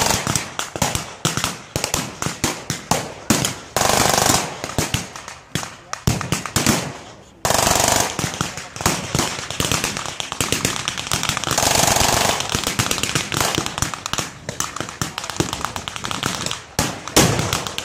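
Blank-firing rifles and machine guns in a rapid, uneven string of cracks. A louder, longer blast comes about seven and a half seconds in, from a pyrotechnic ground charge going off.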